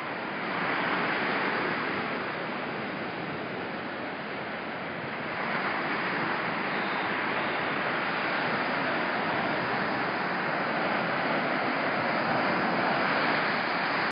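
Ocean surf washing ashore: a steady rush of breaking waves that swells about a second in and builds again from about five seconds on.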